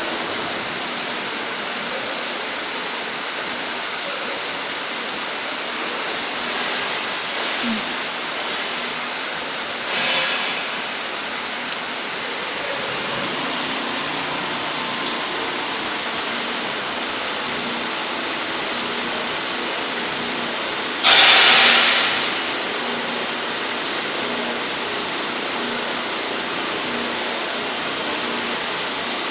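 Steady rushing noise of a factory workshop during a welding turning roll's running test, with a faint low hum. About 21 seconds in, a loud burst of hissing noise lasts about a second and fades.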